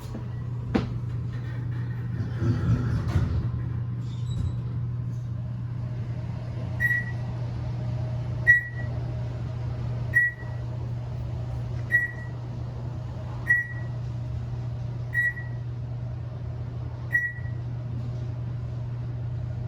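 Otis hydraulic elevator with a steady low hum, and a short high-pitched beep repeating about every second and a half to two seconds, starting about a third of the way in.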